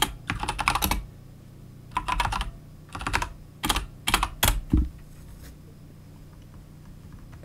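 Computer keyboard typing in several short bursts of keystrokes as a terminal command is entered, then it stops for the last couple of seconds.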